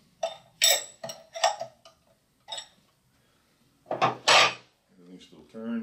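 A steel wrench clinking against the gland bolt nuts of a Goulds 3196 pump's cartridge seal gland as they are tightened to crush the gasket: a string of short metallic clicks, about two a second, then a louder double clank about four seconds in.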